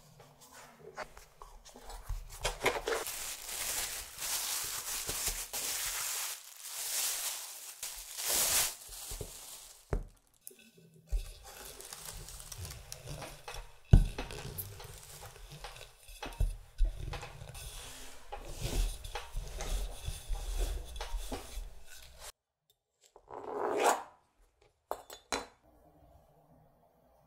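Laminated butter dough being handled and folded by hand, with soft rubbing and rustling. Then a rolling pin rolls it out on a pastry mat with a low rumble and a single sharp knock about fourteen seconds in.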